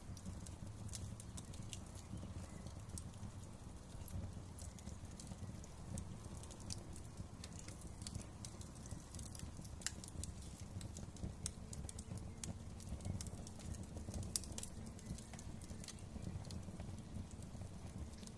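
Wood fire crackling: irregular sharp pops and snaps, many per second, over a low steady rumble of burning.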